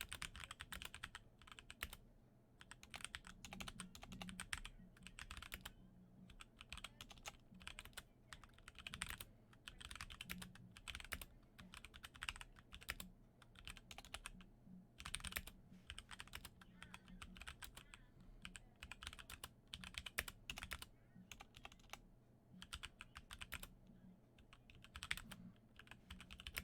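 HyperX Alloy Origins Core TKL mechanical keyboard with HyperX Aqua tactile switches being typed on: quick runs of keystrokes, each a short sharp click, broken by brief pauses.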